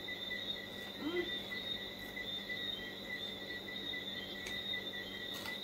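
A steady, high-pitched insect trill, like crickets, sounding continuously at two pitches over faint background noise.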